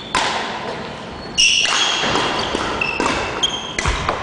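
Badminton rally: sharp racket strikes on the shuttlecock about every second or so, echoing in the hall, with shoes squeaking on the wooden court floor between shots and a thud of a footfall near the end.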